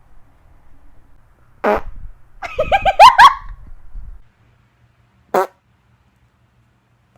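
Fart sounds: a short one about a second and a half in, a longer sputtering run of quick rising blips around three seconds that is the loudest, and another brief one near five and a half seconds.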